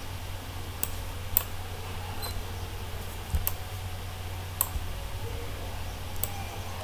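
Computer mouse clicking about six times at irregular intervals, over a steady low hum.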